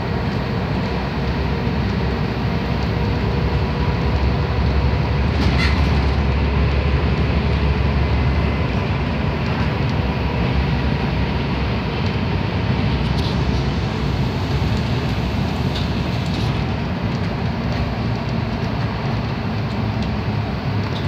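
Mercedes-Benz OM447hLA inline-six turbo diesel of an O405NH bus running under way, heard from inside the bus with road noise. The low engine drone grows deeper and louder for a few seconds about four seconds in, and a few faint rattles or clicks come through.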